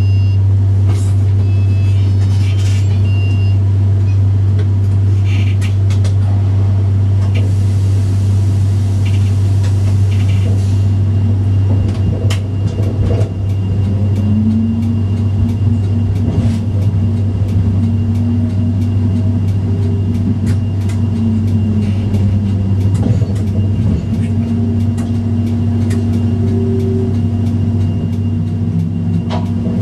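Tram running: a steady low hum throughout, with a few short high beeps in the first seconds. From about halfway the traction motors' tone rises and falls as the tram pulls away, with scattered clicks and knocks of the wheels over track joints and points.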